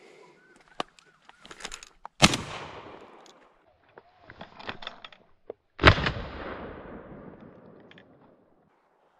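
Two shotgun shots about three and a half seconds apart, each followed by a long fading echo.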